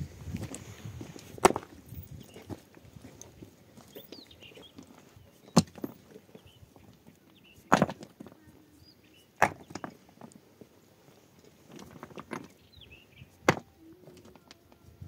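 Five sharp chopping strikes, spaced irregularly from about one to four seconds apart, each cut off quickly.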